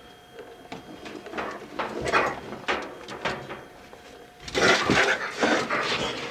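A cornered baby raccoon behind a washing machine, with scuffling and scraping, then a loud harsh hissing burst about four and a half seconds in as it attacks.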